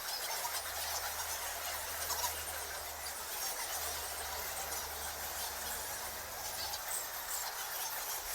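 A colony of bats squeaking and chattering without a break, many short high-pitched squeaks overlapping.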